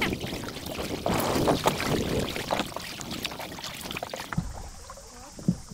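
Kayak paddle strokes dipping and splashing in seawater, with water sloshing around the hull. About four seconds in, the sound abruptly turns quieter.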